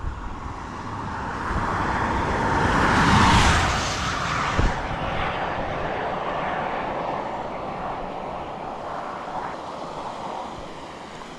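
A vehicle passing by on the highway: its tyre and engine noise swells to a peak about three seconds in, with a single thump about a second later, then slowly fades away.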